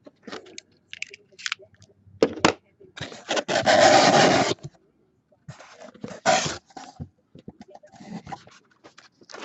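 Cardboard packaging of a trading-card case being handled: scattered scrapes and clicks, with a loud ripping sound lasting about a second and a half, about three seconds in.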